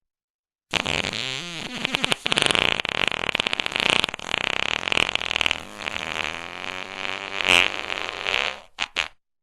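One long, fluttering fart sound that starts just under a second in and runs about eight seconds with wavering pitch. It swells loudest near the end and finishes with two short puffs.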